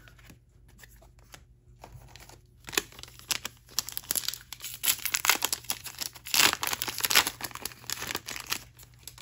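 Crinkly wrapper of a trading card pack being torn open and crumpled: a dense run of quick crackling that starts about three seconds in and lasts some six seconds.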